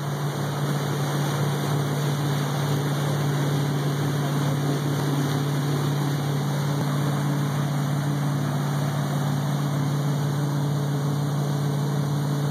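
Motorboat engine running steadily at cruising speed, a constant low drone, with water rushing and splashing along the hull.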